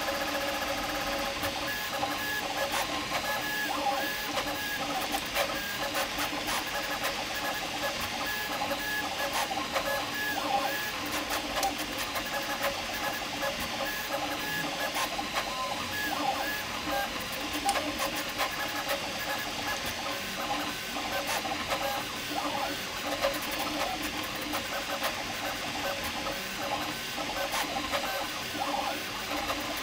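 Prusa MK4 3D printer running a fast Benchy print with input shaping. Its stepper motors whine in rapidly shifting tones over the steady hiss of its fans.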